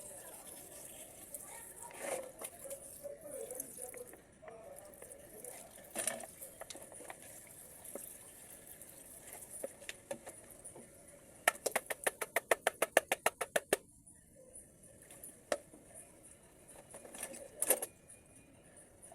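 Small metal parts and tools clicking and clinking during hands-on work on an automatic transmission valve body, with scattered single clicks and, about twelve seconds in, a quick run of about twenty clicks lasting two seconds.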